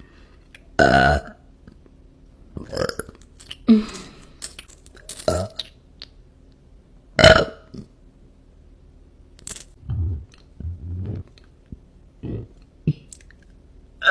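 A woman burping, a string of separate burps of varying loudness. The loudest come about a second in and about seven seconds in.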